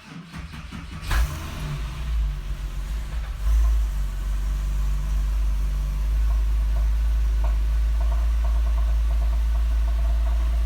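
Porsche 997.1 Carrera 4S 3.8-litre flat-six starting: the starter cranks briefly, the engine catches about a second in and flares up in revs, then settles into a steady idle from about four seconds in.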